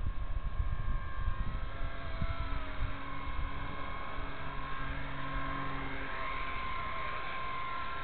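Blade 230S electric RC helicopter with a triple-bladed main rotor, its brushless motor and rotor giving a steady whine whose pitch shifts slightly as the head speed changes. Some wind buffets the microphone in the first second.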